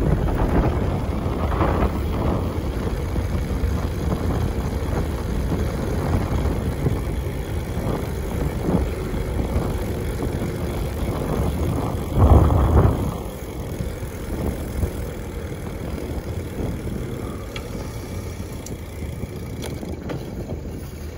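Rush of wind on the microphone with tyre noise from a gravel bike rolling along a paved road. A louder rush comes about twelve seconds in, then the noise eases off.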